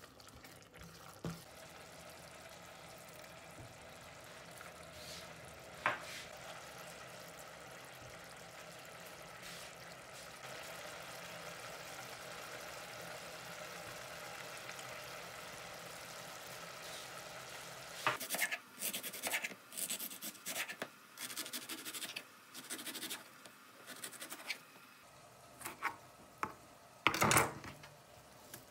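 Thick chilli sambal sizzling steadily in a stainless steel saucepan, with one sharp knock of the wooden spoon about six seconds in. From about eighteen seconds, a knife slicing a red onion on a wooden chopping board: a run of irregular taps, with a louder knock near the end.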